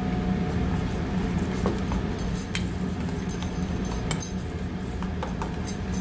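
Metal spoon clinking and scraping against a stainless steel mixing bowl while a thick chickpea spread is stirred. The clinks are scattered and get busier from about two seconds in, over a steady low hum.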